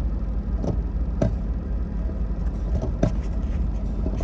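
Lexus GS 300's 2JZ inline-six idling roughly, heard from inside the cabin, with a few sharp clicks. The rough idle is a misfire on all six cylinders, which the scan tool ties to a variable valve timing fault (P1349).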